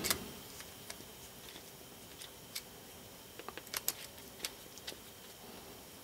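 Faint, scattered small metallic clicks as a small socket tool and nut are worked onto a bicycle pedal spindle to tighten the nut.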